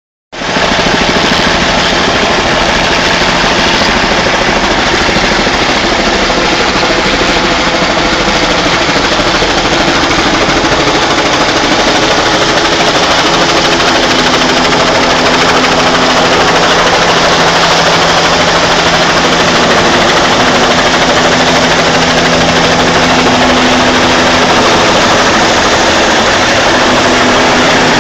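Firefighting helicopter's turbine and rotor running loud and steady close by as it comes in to land, with a continuous hum that shifts to a higher tone about halfway through.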